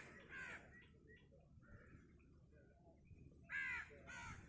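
Crow cawing: a harsh call just after the start, then two more in quick succession near the end, with faint chirps of smaller birds in between.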